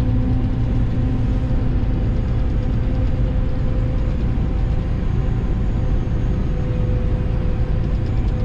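Claas Jaguar 950 self-propelled forage harvester running steadily under load while cutting maize, heard from inside its cab: a constant heavy engine drone with a steady hum from the machine.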